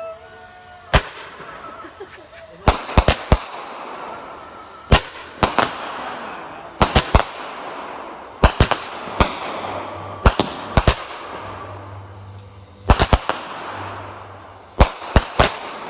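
Fireworks exploding: sharp bangs, often two to four in quick succession, every second or two, with crackle and echo trailing between them. Music fades out in the first second.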